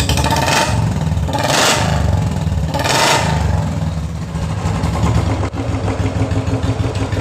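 Royal Enfield Bullet single-cylinder engine running after a top-end rebuild with new hydraulic tappets: three quick throttle blips in the first three seconds, then a steady idle. Only the exhaust note is meant to be heard, the tapping ('tak tak') noise having been cured by the repair.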